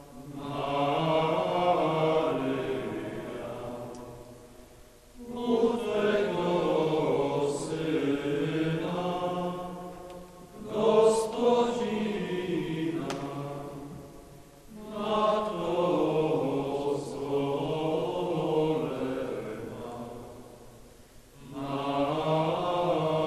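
Low male voices chanting in long sustained phrases, each about four to six seconds, with short breaks between them.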